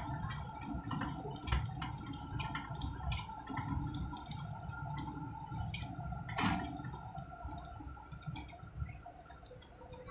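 Low rumble inside a moving airport apron bus, with scattered rattles and clicks throughout and one louder knock about six and a half seconds in.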